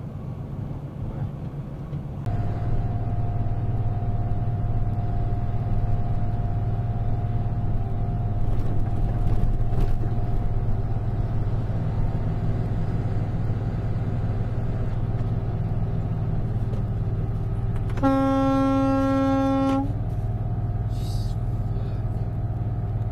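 Steady drone of a vehicle driving, heard from inside the vehicle, then a single vehicle horn blast lasting about two seconds about three quarters of the way through.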